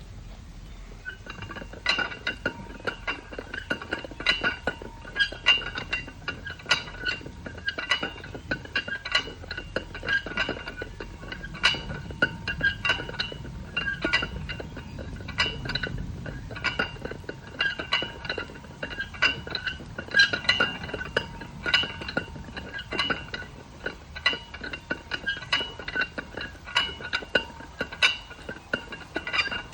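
Loaded barbell clinking and rattling during repeated curls: many sharp metallic clinks, each with a short ringing tone, come irregularly through every rep.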